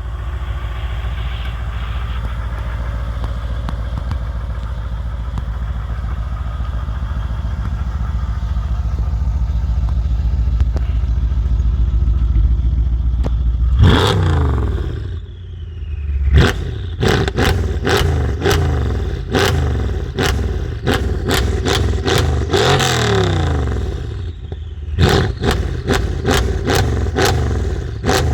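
Modified 2016 Mercedes-AMG CLS63 S twin-turbo V8 with an aftermarket exhaust, running steadily and slowly growing louder. About fourteen seconds in it revs sharply, and from about sixteen seconds on it is blipped again and again, each rev falling away quickly.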